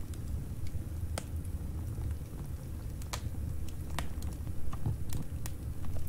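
Wood fire burning in a fireplace: a low steady rumble of flames with scattered sharp crackles and pops, about one every second or so.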